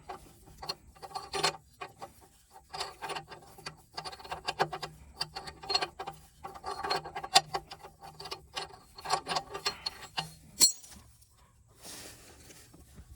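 A ratchet clicking in repeated short runs as a 22 mm oxygen-sensor socket is swung back and forth, unscrewing the old front heated oxygen sensor from the exhaust. The runs of clicks stop about eleven seconds in with one sharp click.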